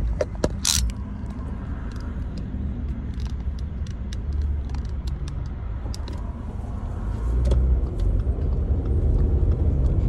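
Car cabin noise while driving: a steady low engine and road rumble that gets louder about seven seconds in, with scattered small clicks and a sharp knock just under a second in.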